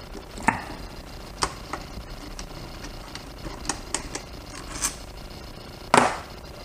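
Scattered sharp clicks and taps of a screwdriver on metal as screws are worked out of a motorcycle throttle body's fuel rail, with a louder clack about six seconds in.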